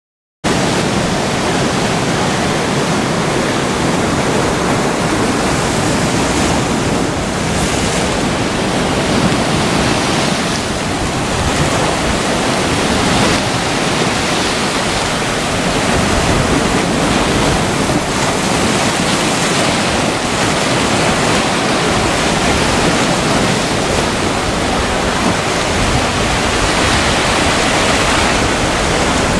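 Choppy sea surging and washing over rocks along a rocky shore: a steady rush of surf.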